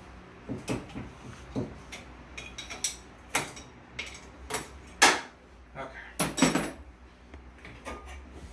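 Metal tools and bolts clinking and knocking against the turbo and exhaust hardware: a string of sharp separate clicks and clanks, the loudest about five seconds in, with a quick cluster of rattles just after six seconds.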